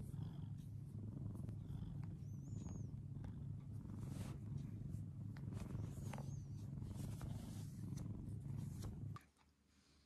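Domestic tabby cat purring steadily and loudly right at the microphone as its chin is scratched. The purring cuts off suddenly near the end.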